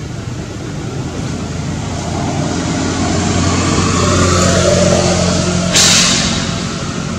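A motor vehicle's engine hum, growing louder toward the middle and then easing off, like a vehicle passing close by. A brief sharp hiss comes about six seconds in.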